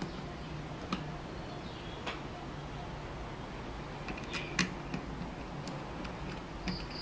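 Scattered small clicks and taps of hands handling a small LCD display board and its brass standoffs and screws on a stripboard, with a short cluster of clicks a little past the middle, over a steady low background hum.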